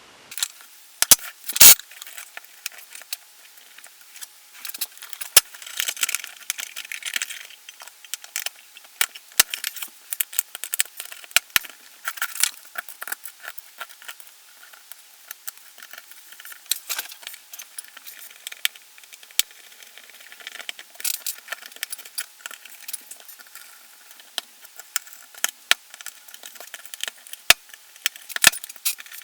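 Small metal parts and tools clicking and clinking against an opened airsoft V2 gearbox shell while its broken safety lever mechanism is swapped for a spare. Quick, irregular light clicks and taps, with the sharpest knock about a second and a half in.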